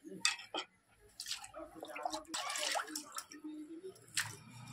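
Water splashing and sloshing in a vessel in irregular bursts while a freshly cut fish is washed clean, with small knocks and clatters among the splashes.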